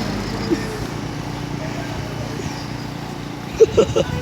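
Tuned 130cc automatic scooter engine idling with a steady hum. Near the end come three short, loud bursts.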